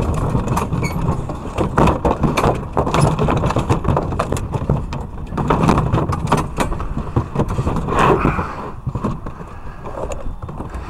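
Clicks and rattles of a plastic dog crate's wire door as it is unlatched and opened, over a steady low rumble.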